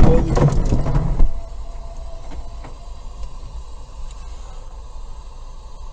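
Tail end of a car collision: loud knocks and clatter for the first second or so, then a steady low engine and road rumble heard from inside the car.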